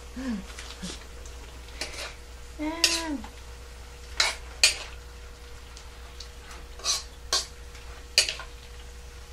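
A metal utensil stirring food in a wok, scraping and clinking against the pan, with several sharp knocks from about four seconds on.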